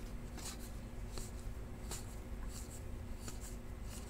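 Trading cards being flicked through one by one: soft, brief scrapes of card stock sliding off the stack, about two or three a second.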